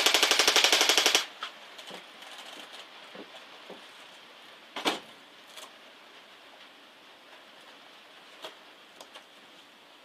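Airsoft electric gun firing a rapid full-auto burst of evenly spaced shots for about a second, then falling silent. A few single sharp snaps follow later, spaced seconds apart.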